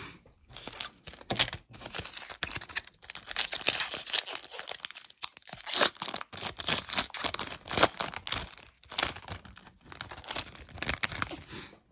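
Foil trading-card pack wrapper being torn open by hand and crinkled, a continuous crackling rustle that starts about half a second in.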